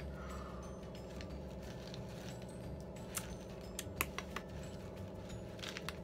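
Handling noise from a sheet mask packet and tissue paper: scattered crinkles and sharp clicks, the sharpest about three to four seconds in, over a steady low hum.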